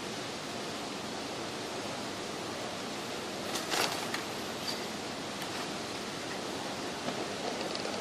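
Steady hiss of background noise, with a short, louder noise about three and a half seconds in.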